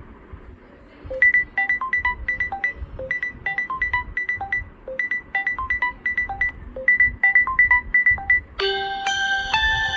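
Samsung Galaxy S10e ringtones playing. Starting about a second in, a short phrase of quick, bright notes repeats about every two seconds. About eight and a half seconds in, it switches to a different ringtone with fuller, held notes.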